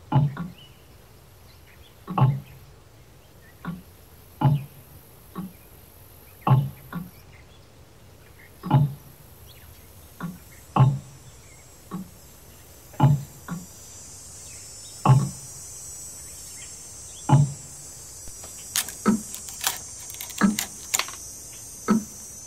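Hollow knocks in a slow, regular rhythm, a heavy knock about every two seconds with a lighter one between. A thin hiss builds from about halfway, and near the end the knocks come quicker, mixed with sharp clicks.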